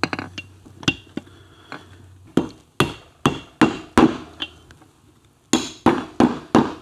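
Hammer tapping a socket used as a drift, driving a Triumph Tiger Cub's oil-pump worm gear down its keyed shaft: about a dozen sharp metal taps, coming faster near the end as the gear seats and sounds bottomed out.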